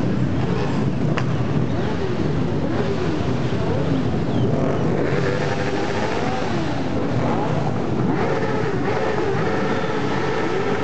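A stream of motorcycles riding past one after another, many engines overlapping, their pitch rising and falling as riders rev and pass.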